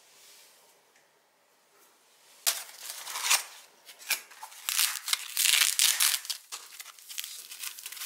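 Cardboard box and packing material being handled and unwrapped by hand: dense crinkling and rustling with sharp crackles. It starts about two and a half seconds in after a quiet stretch.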